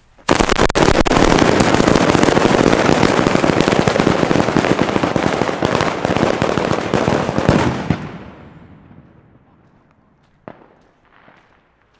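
A 50-metre traca firecracker chain going off: a loud, dense, unbroken crackle of rapid bangs starts abruptly just after the beginning, runs for about eight seconds and dies away, and a single stray pop follows a couple of seconds later.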